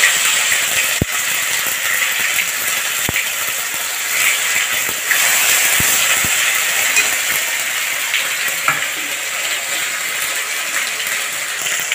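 Ginger and green chilli paste sizzling loudly in hot oil in a metal kadai, a steady hiss, with a few sharp clicks from the metal spatula tapping and scraping the pan as it is stirred.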